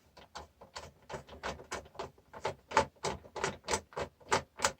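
A ratchet clicking steadily, about five clicks a second, as a small bolt inside a food mixer's housing is undone.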